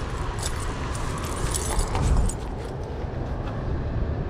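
Road traffic and wind rumble, with a few light metallic clicks and jingles scattered through.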